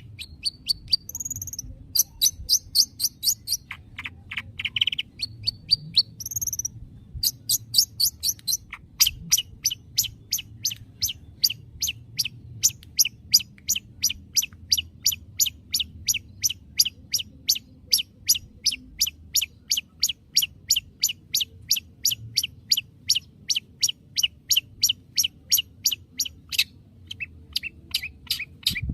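Long-tailed shrike (cendet) calling: a few varied sharp calls and high whistles, then a long, even series of sharp falling notes at about three a second. This is a lure call meant to provoke a silent caged shrike into answering.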